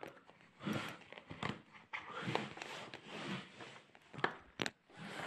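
Phone-microphone handling noise: soft rustling of cloth and fabric in short irregular bursts, with a few sharp clicks.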